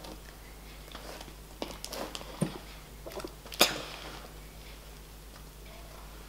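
Homemade glue slime being squeezed and kneaded by hand in bowls: scattered soft squelches and a few short sharp clicks, the loudest about three and a half seconds in.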